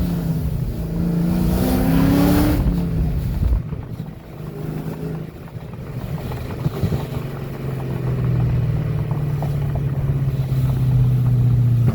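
2004 Pontiac GTO's LS1 V8, breathing through long-tube headers, a full exhaust and an aftermarket cam, revving up under acceleration for about two and a half seconds, then dropping off as the throttle lifts. It then settles into a steady, lower exhaust drone that grows louder toward the end.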